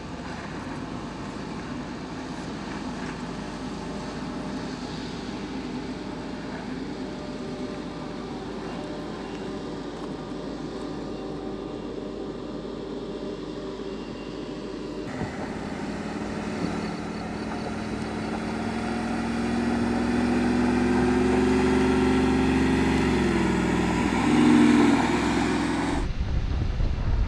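Off-road SUV engine pulling steadily up a steep gravel climb, at first from a distance. About halfway through it grows louder and rises in pitch near the end, then turns into a low rush of wind on the microphone for the last second or so.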